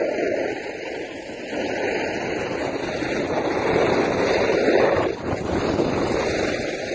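Steady rushing wind noise on a phone microphone outdoors on a ski slope, swelling around four to five seconds in.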